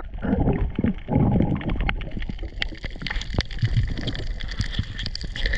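Underwater sound picked up by a diver's camera: low muffled water rumble and movement in the first second or so, then scattered sharp clicks and crackles.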